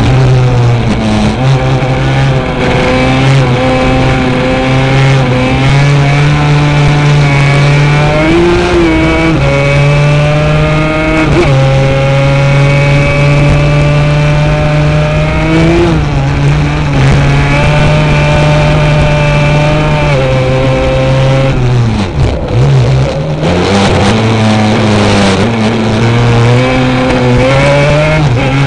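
Racing quad's engine at racing speed, its pitch climbing and dropping again and again with throttle and gear changes. There is a long steady pull in the middle and a brief drop in pitch and level about two-thirds of the way through.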